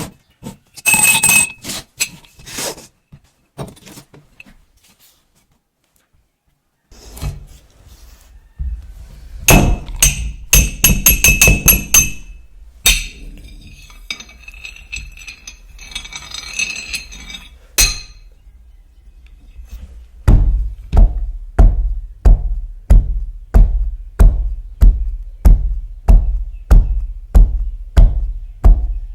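Hand-made foley sound effects: scattered clicks and knocks and bright ringing metallic clinks, with a short silent gap, then a steady run of heavy thuds about two a second starting about two-thirds of the way in.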